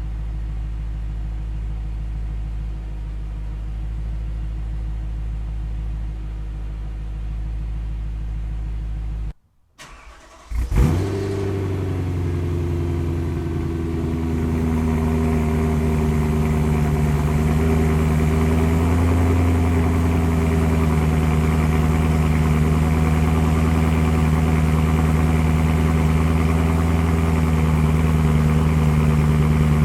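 BMW E92 M3's S65 V8 idling through a Borla ATAK cat-back exhaust. After a brief break about nine seconds in, the engine cranks and fires on a cold start, now with venturis fitted in the exhaust. It then settles into a steady idle that grows somewhat louder.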